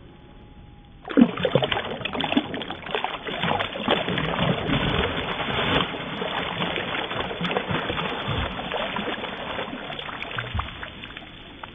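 Bass thrashing at the water's surface: heavy splashing and churning that starts suddenly about a second in and slowly dies away near the end.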